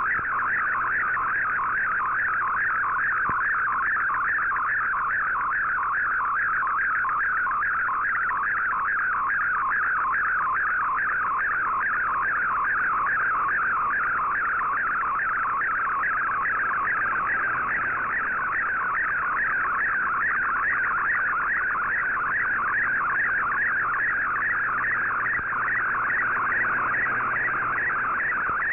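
MFSK64 digital picture transmission from the Shortwave Radiogram broadcast, heard through a shortwave receiver: a rapidly fluttering, warbling data tone held steadily in a narrow midrange band while an image is sent line by line.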